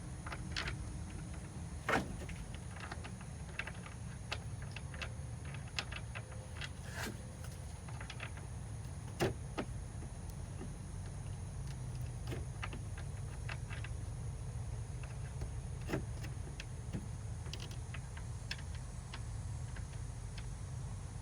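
Scattered light clicks and knocks of hand tools and metal parts being handled, irregular and with no steady rhythm, over a low steady hum. Three sharper knocks stand out, about 2, 9 and 16 seconds in.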